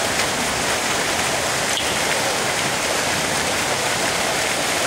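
A steady, even rushing hiss of outdoor background noise, with no distinct events.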